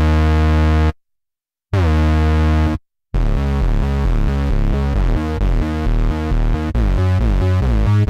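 GForce Oberheim OB-X software synthesizer, an emulation of the analog Oberheim OB-X, playing a low, rich preset sound. First come two held chords about a second each, broken by short silences. Then from about three seconds in comes a quick run of changing bass notes, several a second.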